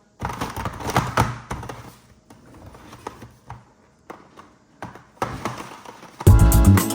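Irregular plastic clicks and clacks of an oversized Rubik's cube being turned by hand, busiest in the first two seconds and quieter in the middle. Background music with a beat starts near the end.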